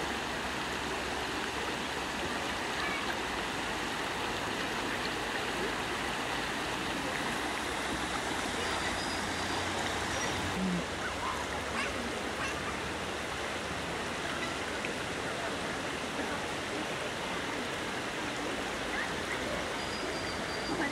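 Flowing water rushing steadily, as at a fast stream or river.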